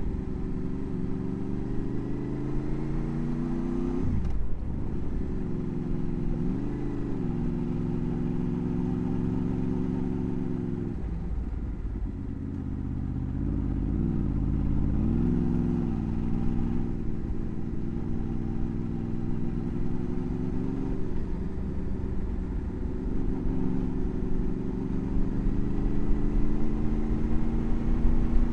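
Motorcycle engine running under way, its pitch dipping sharply and recovering about four seconds in and rising and falling a few times with the throttle, over a low wind rumble.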